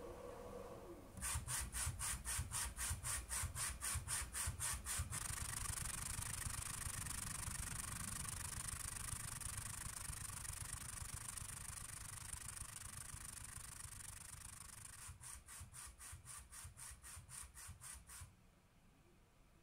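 Stepper motor of a homemade automated PCB machine driving its photoresist exposure carriage along a linear rail. It pulses evenly about five times a second for a few seconds, settles into a steady whir, then pulses again and stops near the end.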